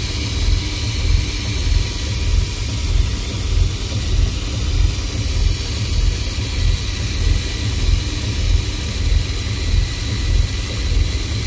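Low, steady rumble aboard a small fishing boat at sea, swelling and easing about twice a second, with a faint hiss above it.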